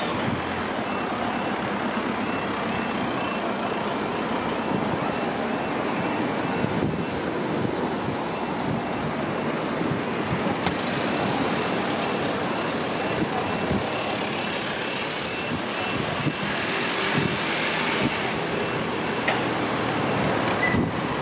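A level crossing's audible warning alarm repeats a high beep at a steady pace while the barriers lower, and stops about three quarters of the way through, once the barriers are down. Under it runs the steady noise of road traffic and vehicles queued at the crossing.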